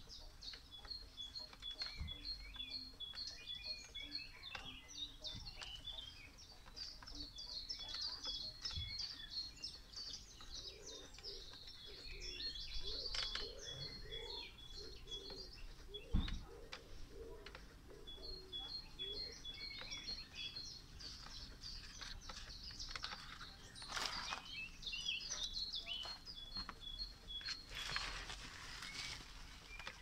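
Several songbirds singing and chirping. Runs of fast, evenly repeated high notes come and go every few seconds, and there is a single low thump about halfway through.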